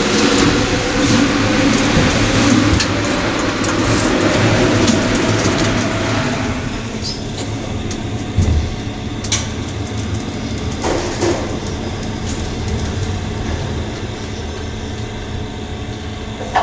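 Otis Gen2 gearless traction lift: the car doors slide shut and the car moves off, with a loud rushing noise and a faint rising whine over the first six seconds or so, then a quieter steady hum while the car travels, with a few light clicks.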